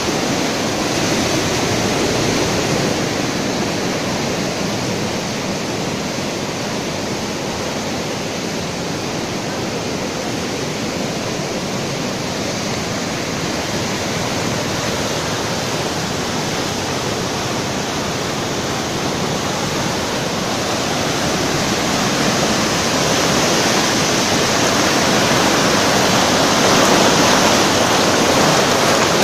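A muddy river in spate rushing past in full flood, a steady, loud wash of fast floodwater carrying branches and debris. It grows a little louder over the last several seconds.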